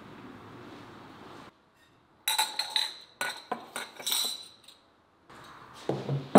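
Glass tea glasses clinking against each other and against a glass teapot as they are picked up: a quick run of sharp clinks that ring briefly. Near the end the glassware is set down on a wooden table with two knocks, the second the loudest.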